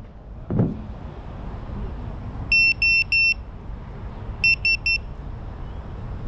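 Electronic beeper sounding three steady beeps at one high pitch about two and a half seconds in, then three quicker beeps about four and a half seconds in. A soft thump comes just after the start, over steady low background noise.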